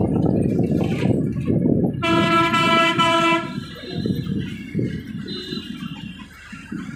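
A vehicle horn sounds once for about a second and a half, about two seconds in, over the engine and road rumble of a moving vehicle heard from inside. The rumble eases off after the horn.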